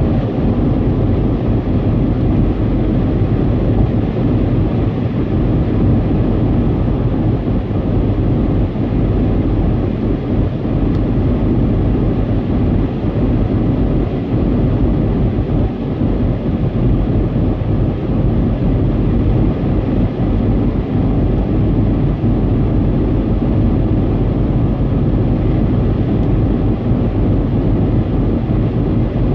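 Steady low road noise inside a car's cabin while driving at expressway speed.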